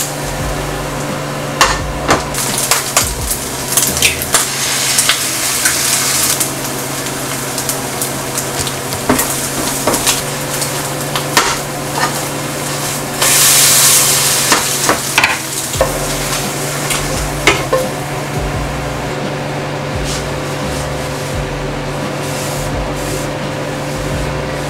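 Bột chiên (pieces of rice-flour cake with egg) sizzling in oil in a nonstick frying pan as it is stirred, with frequent clicks and scrapes of the utensil against the pan. The sizzle flares up loudly for about a second midway.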